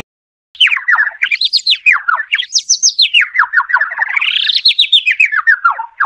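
Recorded bird chirping, played as the sparrow's call: a fast run of chirps, many a second, starting about half a second in, their pitch rising and falling in slow waves.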